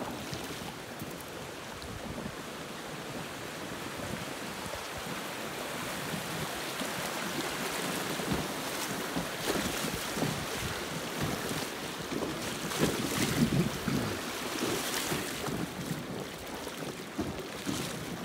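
River water rushing and splashing around a kayak as it runs through shallow rapids, with wind on the microphone. The rush builds through the middle, with sharper splashes a little past the middle, then eases near the end.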